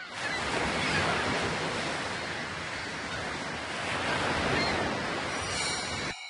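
Ocean surf washing in, a steady rushing noise that swells and ebbs twice, then cuts off suddenly near the end.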